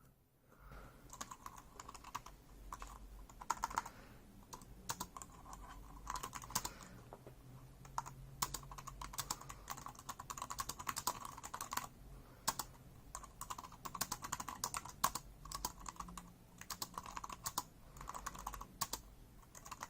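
Typing on the scissor-switch keys of an Anker ultra-compact Bluetooth keyboard: a quick, irregular stream of key clicks with brief pauses between bursts.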